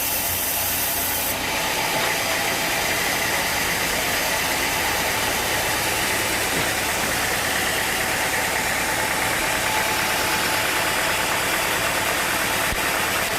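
Sawmill machinery running steadily, a loud even mechanical noise; the sharpest hiss at the top drops away about a second in.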